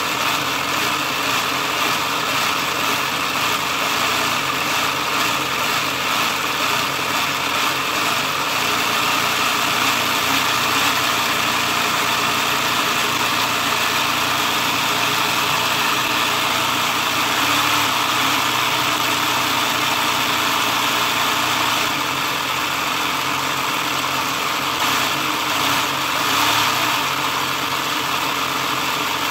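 Motor-driven LEGO model of a Toyota 4A-GE four-cylinder engine running steadily, its plastic mechanism whirring, with small swells in level now and then.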